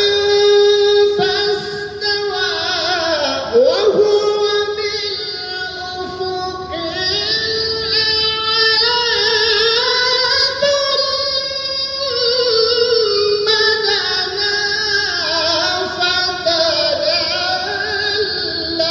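A male qari reciting the Quran in a melodic, sung style into a microphone. The voice is high and carries long held notes with wavering ornaments. About three seconds in, it sweeps down and back up.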